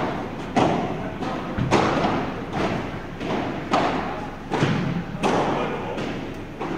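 Padel rally: the ball is struck by rackets and bounces on the court, sharp hits about once a second, each echoing in a large indoor hall.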